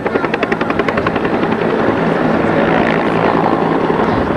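Helicopter rotor chop: a fast, even pulsing in the first second or so that then evens out into a steady rushing noise.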